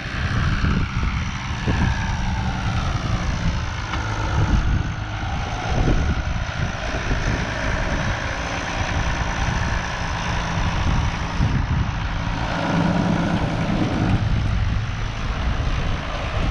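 International Harvester 986 tractor's diesel engine running steadily as it pulls up towing a grain auger.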